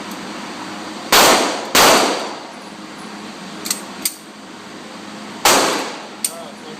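Three gunshots, two in quick succession about a second in and a third near the end, each with a short ringing tail, and a few smaller sharp clicks in between.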